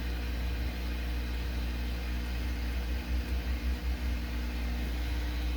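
Heat gun blowing steadily with a low fan hum, heating the solder joints of a laptop touchpad button to desolder it.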